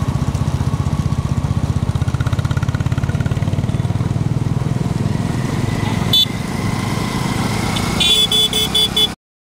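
A motor vehicle engine runs steadily with a fast low pulse. Near the end a horn gives several short beeps in quick succession, and then the sound cuts off abruptly.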